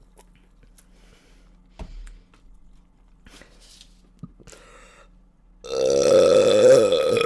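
A single long, loud human burp of about a second and a half near the end, wavering in pitch. Before it there are only faint small clicks and a brief knock about two seconds in.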